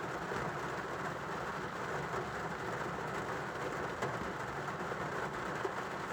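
Steady rain falling: an even, unbroken wash of sound with a few faint ticks of drops.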